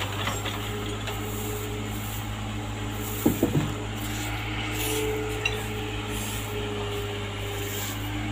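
Excavator's diesel engine running with a steady low drone. Three sharp knocks come in quick succession about three and a half seconds in.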